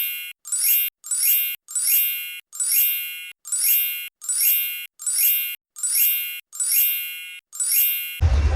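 A bright, high chime struck over and over, about every 0.8 seconds, each ding ringing and fading before the next. It is an added sound effect with the live outdoor sound cut out. Near the end it gives way abruptly to outdoor wind noise.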